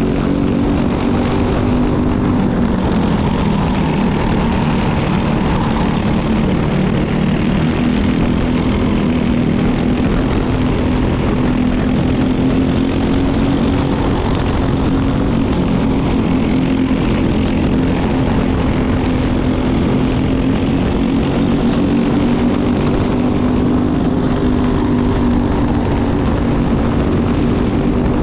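Briggs & Stratton LO206 four-stroke single-cylinder kart engine running hard at racing speed, its pitch dropping and climbing back a couple of times as the kart slows for corners and accelerates out of them.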